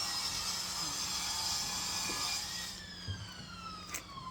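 A siren wailing: its pitch holds high under a loud hiss for the first few seconds, then slides slowly down. There is a sharp click near the end.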